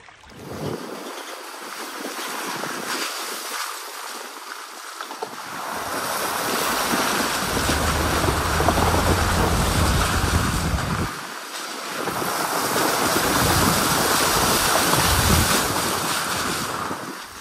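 Pickup truck driving along a muddy dirt track: a steady rushing noise of wind on the microphone and tyres on the wet ground, with the engine's low hum coming in about six seconds in, dropping out briefly near the two-thirds mark, then returning.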